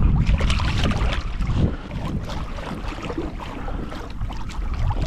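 Wind buffeting the microphone over water slapping and lapping against a kayak's hull, with a flurry of sharp splashes and knocks in the first second or so before it settles to a steadier rush.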